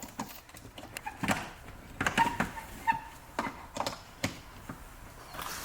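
Scattered light clicks and knocks, several short sharp ones spread through a few seconds, from a power adapter and its cord being handled and plugged in.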